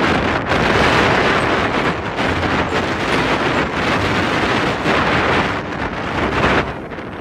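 Strong wind buffeting the microphone: a loud rushing noise that gusts up and down and eases briefly near the end.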